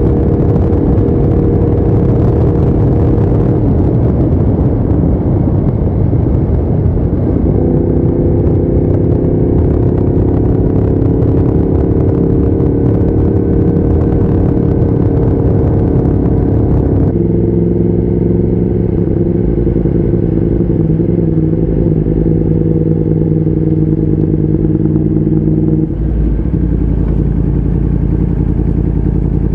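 Motorcycle engine running steadily under the rider, holding one pitch for several seconds at a time. The pitch steps up about seven seconds in, then steps down sharply about seventeen seconds in and again near the end, as with changes of gear or speed.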